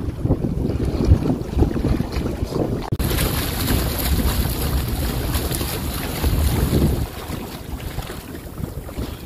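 Wind buffeting the microphone over the wash of open water, in uneven gusts; it eases somewhat about seven seconds in.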